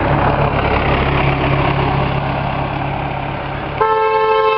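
Road traffic going by, with a vehicle engine running steadily. Near the end a vehicle horn starts honking in one steady tone.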